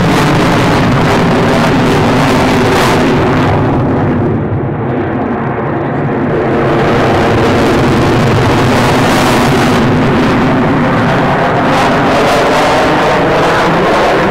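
A Eurofighter Typhoon's twin EJ200 turbofans run at high power with afterburners lit as the jet climbs and turns overhead. The sound dulls for a couple of seconds about four seconds in, then swells back to full strength.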